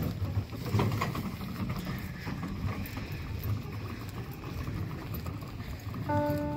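Live street sound of a walk on a stone-paved lane: footsteps with a low wind rumble on the microphone. Soft music with held notes comes in near the end.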